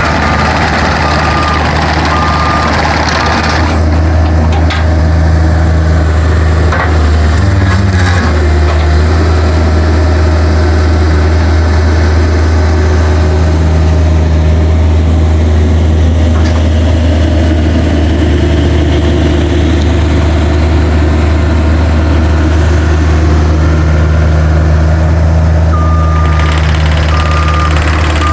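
Caterpillar 305 DCR mini excavator's diesel engine running steadily. An electronic beeper sounds in short, evenly spaced beeps for the first few seconds and again near the end.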